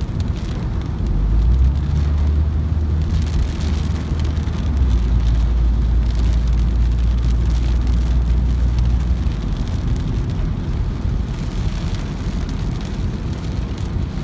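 Rain pattering on a car, heard from inside the cabin, over a strong low rumble of wind and road noise. The rumble eases about nine seconds in, and the rain comes heavier in two spells.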